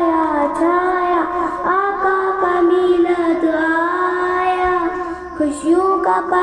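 A girl's voice singing a slow melodic chant, with long held notes that glide up and down and a brief breath about five seconds in.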